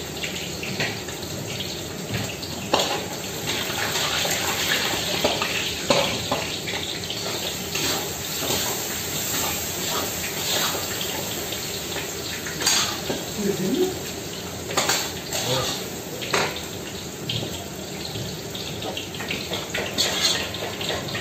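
Meat sizzling as it fries in large pans, a steady hissing spatter, with frequent sharp clacks of a metal utensil against the pans.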